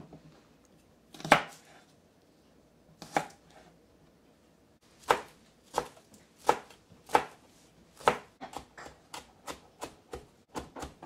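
Kitchen knife chopping celery stalks on a cutting board: two separate cuts, then a run of steady knife strokes that quicken into lighter, faster chops near the end.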